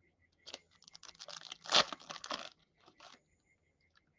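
Foil trading-card pack torn open by hand, the wrapper crinkling for about two seconds, loudest about halfway through, with a short last rustle near the end.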